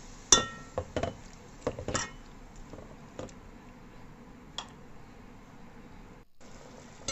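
Metal spatula clinking against a metal cooking pot while stirring tomatoes and spice masala in oil: a quick run of sharp, ringing clinks in the first two seconds, then a few sparse ones, the last about four and a half seconds in.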